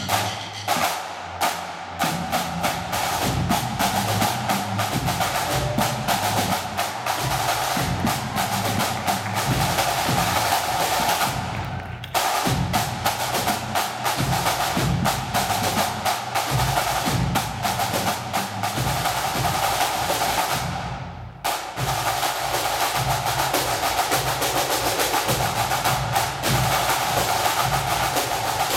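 Pipe band drum corps playing a snare-led drum salute: fast, dense snare strokes and rolls with deeper drums beneath, breaking off briefly about twelve seconds in and again just before twenty-one seconds.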